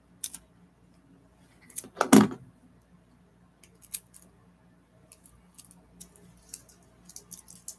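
Light clicks, taps and rattles of small objects and packaging being handled by hand, with a louder knock about two seconds in and a quick run of small clicks near the end.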